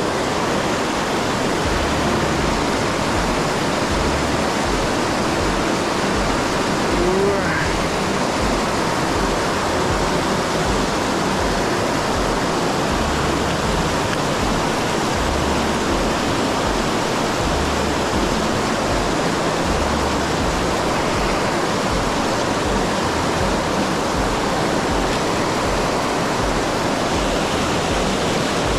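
Mountain stream rushing steadily, an even, unbroken wash of water noise.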